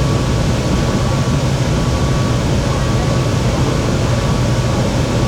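Shenzhen Metro Line 14 train running at speed: a steady low rumble of the running gear with a thin, steady whine above it.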